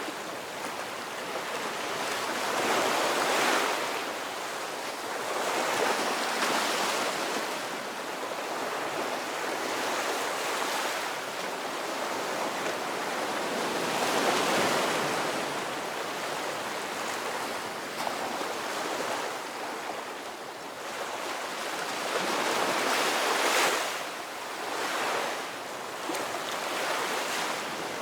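Ocean surf: waves breaking and washing in continuously, the rush swelling and ebbing every few seconds.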